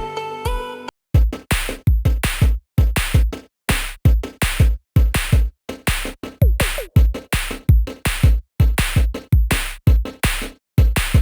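Electronic music with a drum-machine beat: a short held synth chord cuts off about a second in and gives way to a steady pounding kick with bright noisy hits, about two beats a second.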